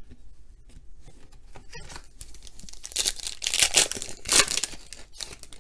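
Foil wrapper of a trading-card pack being crinkled and torn open by hand. Faint rustling at first, then a run of loud tearing and crinkling bursts from about three seconds in.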